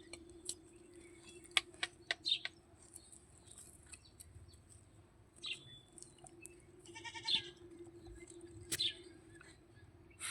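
Small birds chirping faintly now and then, with a few sharp clicks and a steady low hum. One short animal call, a pitched cry, comes about seven seconds in.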